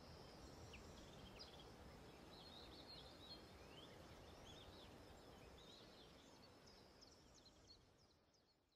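Faint outdoor ambience with small birds chirping and twittering now and then, fading out near the end.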